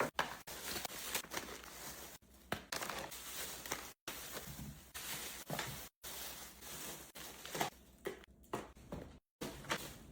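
Groceries being handled and unpacked: packaging and bags rustling, and items knocking and clicking as they are set down, broken by a few brief dead-silent cuts.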